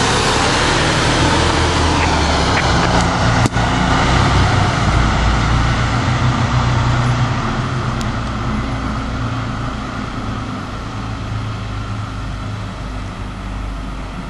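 Fire engine's diesel engine running as the truck pulls away and drives off, its low hum steady at first and fading as it recedes.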